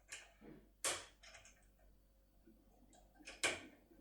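A handful of faint, sharp metallic clicks from a Topolino pick-decoder working inside an ISEO R90 lock cylinder as tension is applied and the manipulator is moved back and forth. The loudest clicks come about a second in and near the end.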